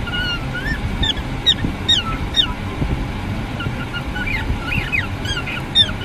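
Cockatiel chirping and whistling: a string of short calls, many sweeping down in pitch, with a few rising whistles, over a low steady rumble.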